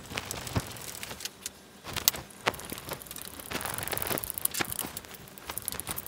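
Small 10mm screws being driven with a hand screwdriver through the LCD circuit board into its plastic cover: scattered clicks and scraping of the driver and parts, with one sharp click about two seconds in.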